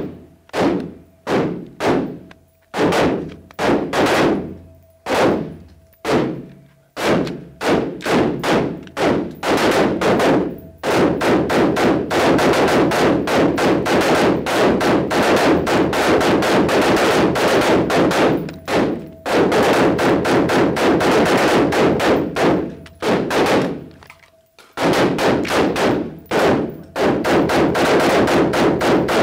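Several AR-style carbines firing on an indoor range, each shot trailing off in the range's reverberation. The shots come singly about a second apart at first, then from about eleven seconds in they overlap into a near-continuous string from several shooters. There is a brief pause near the end before the firing picks up again.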